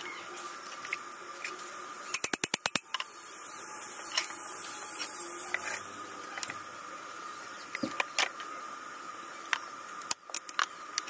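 Stainless-steel railing tubes being handled and knocked into position: scattered metallic clicks and knocks, with a quick run of about seven rapid taps about two seconds in. A steady high hum runs underneath.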